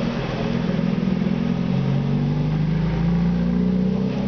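An engine running steadily, its pitch drifting slowly up and down.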